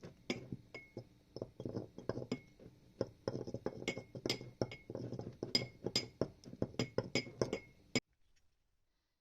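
Small metal parts clinking and knocking together in quick, irregular strikes, several with a short high ring; it cuts off abruptly about 8 seconds in.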